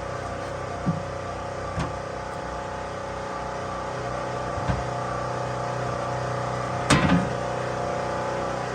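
Portable generator running steadily, with four short sharp knocks over it, the loudest about seven seconds in.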